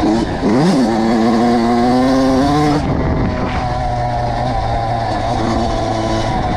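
Kawasaki KX85 single-cylinder two-stroke dirt bike engine revving sharply up about half a second in and holding high revs as it climbs for about two seconds. Near the three-second mark the revs drop abruptly and the engine runs on at a lower, fairly steady pitch.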